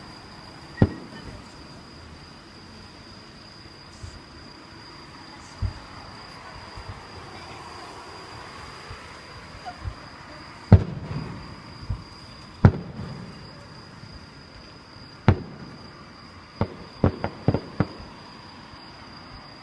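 Aerial fireworks exploding: single sharp booms a few seconds apart, the loudest about eleven seconds in, then a quick run of about five bangs near the end. A steady high-pitched tone runs underneath.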